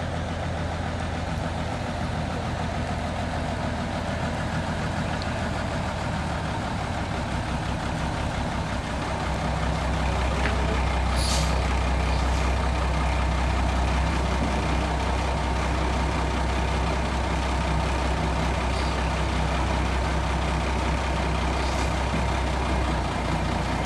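Vintage Diamond T truck's diesel engine running, growing louder about nine seconds in as the truck pulls up, then idling steadily. A short hiss of air brakes about eleven seconds in.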